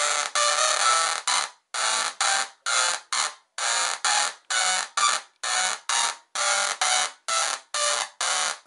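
Small DRSSTC (dual resonant solid-state Tesla coil) firing in repeated bursts, its spark streamers buzzing from the breakout wire on the topload. The bursts come about twice a second, each lasting under half a second with short gaps between.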